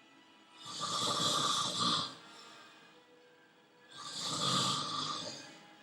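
A sleeping man snoring: two long snores, each about a second and a half, a little over three seconds apart.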